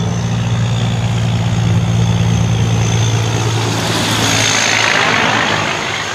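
Semi-truck's diesel engine running steadily as the truck drives past, a low drone with rushing tyre and road noise that swells as it passes close about four seconds in.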